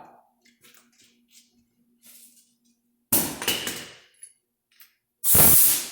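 A hammer driving a cold chisel through the sheet-metal rocker panel of a 1994 GMC Yukon/Chevy Blazer: a few light taps, then two loud metallic blows with a ringing decay, one about three seconds in and one near the end.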